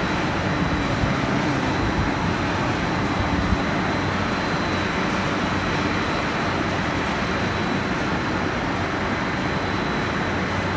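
Steady machinery noise of a snack-pellet production line running, with a faint high whine held throughout.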